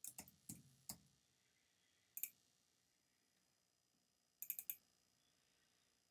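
Faint clicks of a computer mouse: several in the first second, a double click about two seconds in, and a quick run of four or five clicks about four and a half seconds in.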